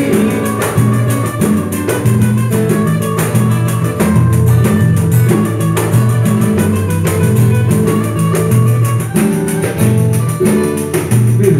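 A small acoustic band playing an instrumental passage: a banjo and an acoustic guitar strumming over steady low bass notes, with a pandeiro tapping out a regular beat.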